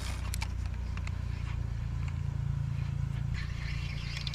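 A steady low motor hum, with a few faint clicks over it.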